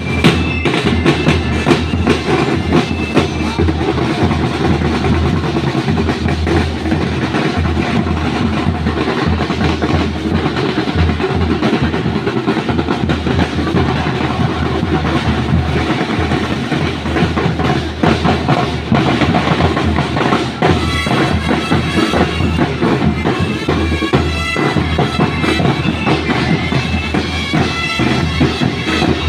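Drum and lyre marching band playing: steady snare and bass drum beats, with a ringing melody coming through more clearly in the last third.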